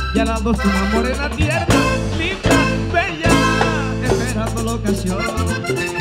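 Loud live Latin band music with a steady bass line that drops out about five seconds in.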